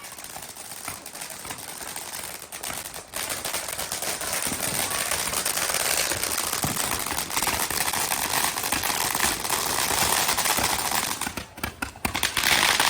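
A string of firecrackers going off in a dense, rapid run of pops and crackles, growing louder a few seconds in and thinning briefly near the end before picking up again.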